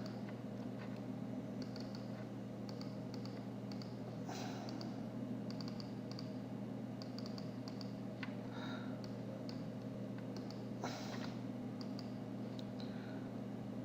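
Computer mouse and keyboard clicks, scattered in small irregular clusters, over a steady low electrical hum.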